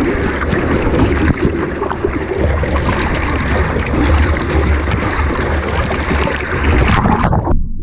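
Wind and breaking surf pounding on a GoPro's microphone, a loud, dense rush of whitewater with a heavy low rumble. Near the end the hiss cuts off suddenly and only a muffled low rumble remains, as the camera goes under the water.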